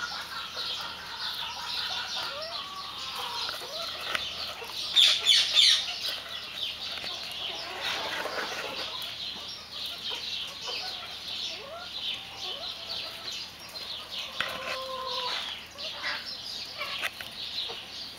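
White Silkie chickens clucking and making many short, high chirping calls, with a louder flurry about five seconds in.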